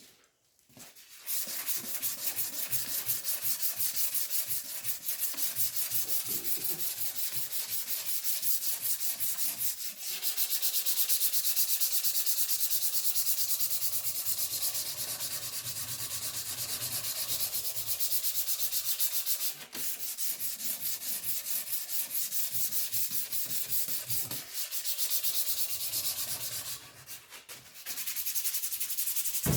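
Abrasive power sanding of a freshly forged steel hammer head during cleanup: a steady, high-pitched abrasive hiss that starts about a second in and breaks off briefly a few times.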